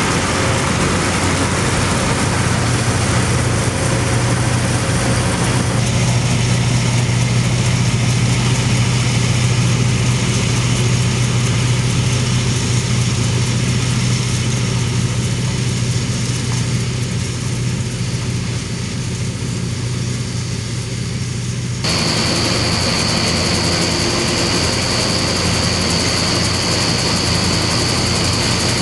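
Steady drone of a tractor-drawn John Deere 360 combine threshing, its machinery driven by the pulling Case IH 1056 XL tractor's diesel engine, with a strong low hum throughout. The sound changes abruptly about 6 and about 22 seconds in, and in the last part a steady high whine joins.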